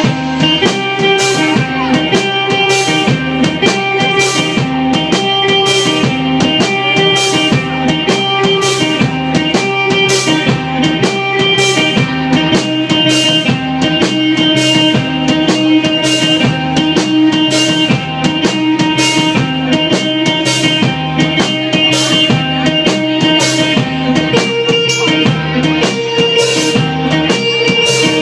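Live rock band playing, with electric guitar and a drum kit keeping a steady beat; the drums come in right at the start over the guitar.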